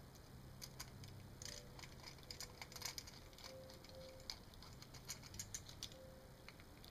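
Faint small clicks and scratches of tiny screws being set and driven into a small aluminium device case with a small screwdriver, with light metallic handling rattles.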